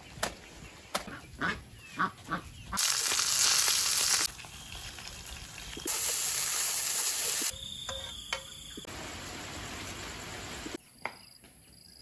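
Ducks quacking, about six short calls, followed by stretches of loud rushing noise that start and stop abruptly.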